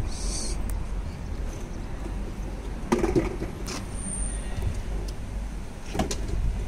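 Ford Focus Mk2 bonnet being opened: a latch-like click about six seconds in as it is lifted. Under it runs a low steady rumble, with a couple of short knocks around three seconds in.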